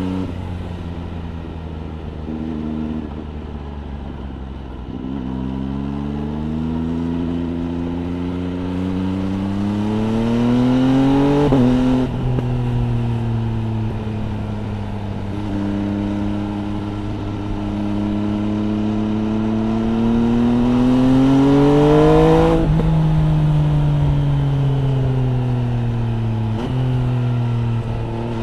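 MV Agusta Brutale 800 RR's three-cylinder engine through an FF by Fresco aftermarket exhaust, heard from the rider's seat while accelerating and shifting. The revs climb steadily, break at a gear change about twelve seconds in, then hold and climb again to the loudest point about two-thirds through. The revs then fall off with the throttle closed, and there is another shift near the end.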